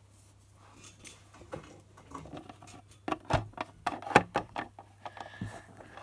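Plastic toy figurines being handled and set down on a wooden surface: a quick run of clicks and taps about halfway through, the loudest a little after four seconds, over a steady low hum.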